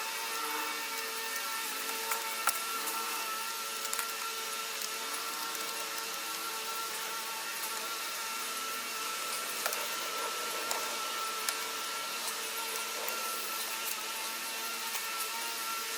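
A few scattered light clicks and taps as the wire connectors and parts of a refrigerator's control board are handled and fitted back together, over a steady background hum with a faint whine.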